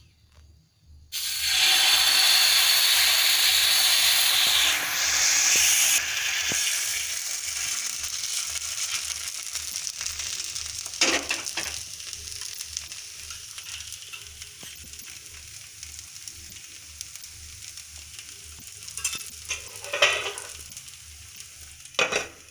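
Rice and black-gram batter hitting a hot oiled tawa and sizzling loudly, starting suddenly about a second in, then the sizzle slowly dying down as the pancake cooks. A few short knocks of utensils, the last one near the end as a metal lid is set over the pan.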